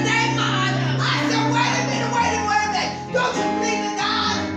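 Church music: a band plays held chords over a steady bass line while voices sing over it. The chord changes about two seconds in and again a little after three seconds.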